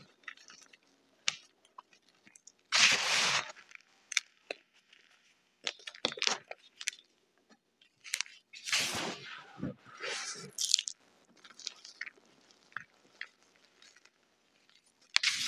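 Hands squeezing and crumbling fistfuls of crushed gym chalk, a crunchy, gritty sound in three or four bursts of about a second each, with scattered small crackles between as crumbs break up.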